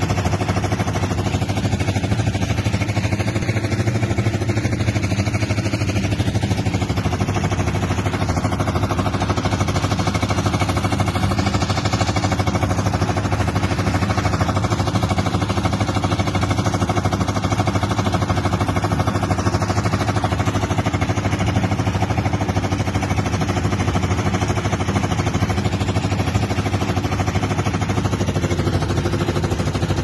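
Portable concrete mixer's engine running steadily, with a constant low hum.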